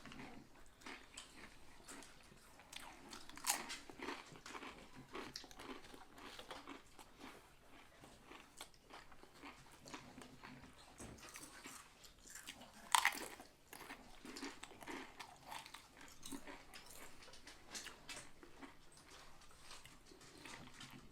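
Close-up eating sounds of a sub sandwich: bites, crunching and chewing, as a run of small wet clicks with two louder sharp crunches, one about three and a half seconds in and one near the middle.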